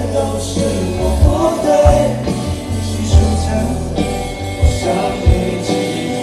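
Live concert music: a pop ballad sung over sustained bass and kick-drum hits.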